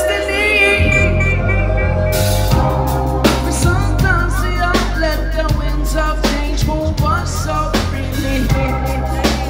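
Live rock band playing loud over a PA. A bass line comes in about a second in, then drum kit and electric guitar join from about two seconds in.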